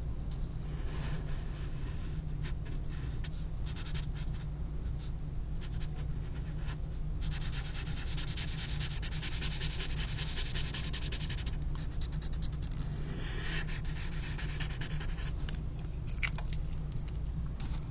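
Drawing tool scratching across paper in quick back-and-forth shading strokes, densest from about seven to eleven seconds in and again from about thirteen to sixteen seconds, over a steady low hum.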